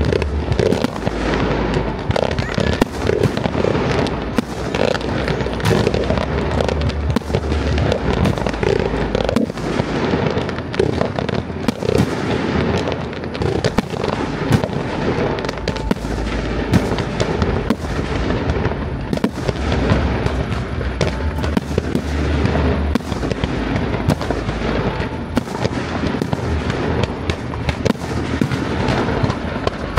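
Fireworks display: a dense, unbroken barrage of aerial shell bursts and crackling, many sharp bangs close together without a pause.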